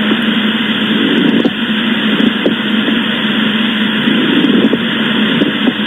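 Stethoscope recording of a pleural friction rub, the inflamed visceral and parietal pleura rubbing against each other: a steady rasping noise over a low hum, swelling faintly about once a second.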